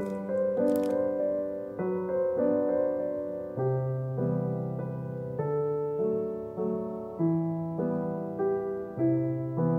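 Background piano music: a slow melody over held chords. A brief rustle cuts in about a second in.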